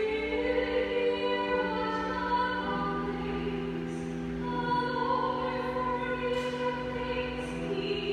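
Sung responsorial psalm: a voice singing slow, held notes over sustained organ chords, the chords changing every second or two.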